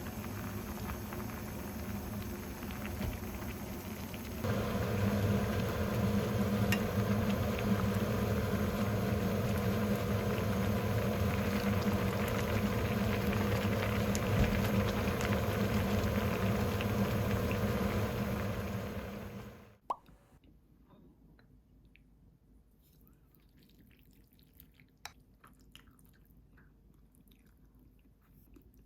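Kitchen appliance running with a steady hum that steps up in level about four seconds in, then shuts off abruptly with a click about twenty seconds in; faint small ticks and drips follow.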